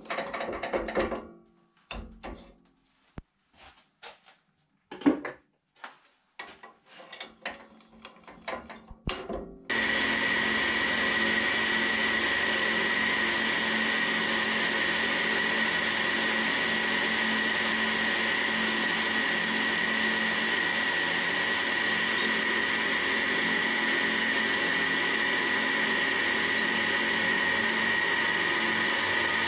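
A few scattered metal clicks and knocks as the drill bit and tailstock are set up. About a third of the way in, the wood lathe is switched on and runs steadily with a constant high whine, while a drill bit fed from the tailstock bores into the end grain of the spinning chestnut blank.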